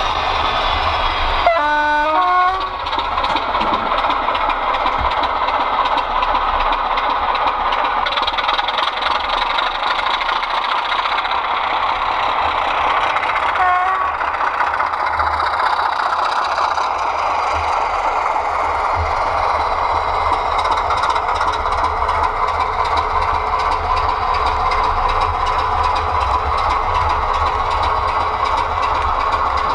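Sound-fitted Heljan Class 25 model diesel locomotive running, its DCC sound decoder playing steady diesel engine sound over the model's own running noise. A two-tone horn sounds about two seconds in, and a short horn blast comes again about halfway through.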